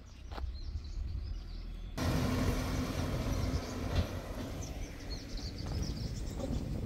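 Running noise of a moving road vehicle, a dense steady rumble with a low hum, which comes in abruptly about two seconds in after a quieter stretch with a few faint clicks.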